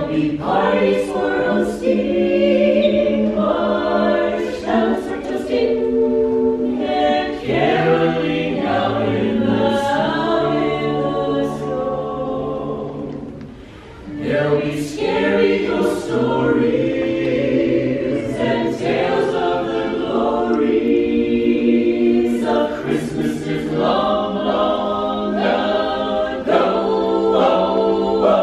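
An a cappella mixed choir of costumed carolers, men and women, singing in harmony, with a brief break between phrases about halfway through.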